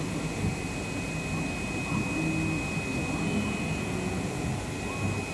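Pattern plotter running as it cuts PVC sheet: the cutting head's drive motors give short tones that shift in pitch as the head moves and stops, over a steady machine drone with a constant high whine.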